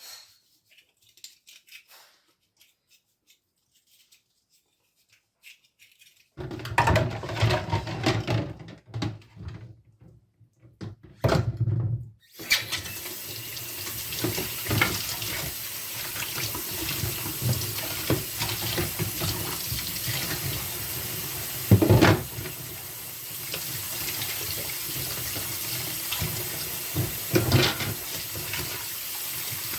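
A tap running water into a sink as soap build-up is rinsed off washing-machine detergent-dispenser parts. The water starts about twelve seconds in and runs steadily, with two sharp knocks later on; before it, a few seconds of uneven handling noise.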